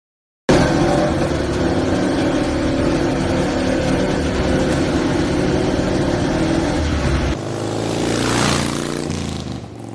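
Racing motorcycle engine running loudly in a pit lane, starting abruptly and cutting off about seven seconds in. A rising whoosh follows, swells and fades away.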